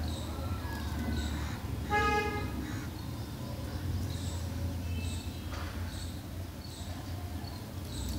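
Birds chirping at short, regular intervals over a steady low hum, with one brief, louder pitched call about two seconds in.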